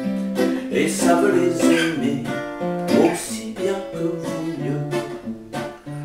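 A man singing a French song to his own acoustic guitar, the plucked guitar accompaniment running under held sung notes.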